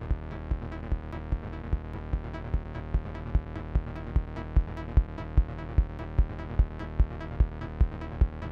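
Live hardware techno from drum machines and synthesizers: a steady four-on-the-floor kick drum at about two and a half beats a second, with ticking hi-hats over a sustained synth bass drone.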